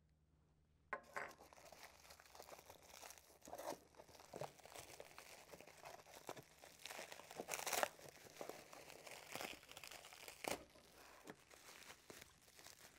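Bubble wrap crinkling and crackling as it is pulled out of a cardboard box and handled, with irregular sharp crackles among the rustling. It starts about a second in.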